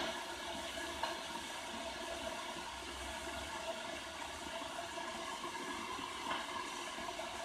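Electric kettle heating water, a steady hiss from the element with a couple of faint ticks; the water is still only lukewarm, early in the heat-up and well short of the boil.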